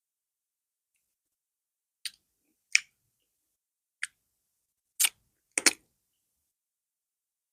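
Close-up eating mouth sounds: five short, sharp wet clicks and smacks from chewing plantain fufu and okra soup, the last two close together, with silence between.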